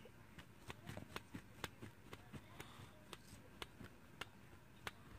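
Faint, irregular ticks and scratches of a ballpoint pen tracing around the inside of a stencil on construction paper.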